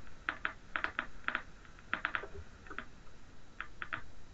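Faint, irregular clicking of someone typing on a computer keyboard, picked up over a conference-call line: quick clusters of keystrokes with a short pause partway through.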